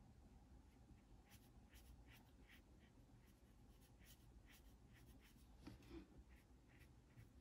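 Faint, short swishes of a watercolor paintbrush stroking paper, a run of irregular strokes about every half second.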